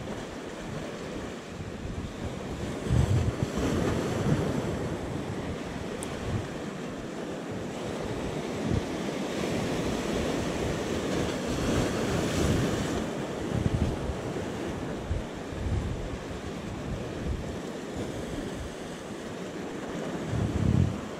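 Sea waves surging and washing against a breakwater of concrete blocks and rocks, with wind buffeting the microphone in irregular gusts.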